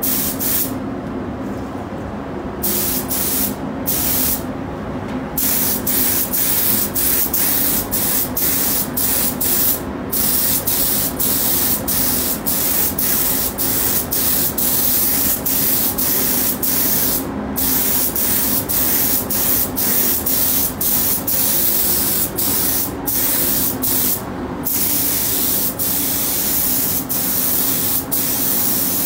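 Compressed-air gravity-feed paint spray gun hissing as it sprays, in long passes broken by many short pauses, over a steady low hum.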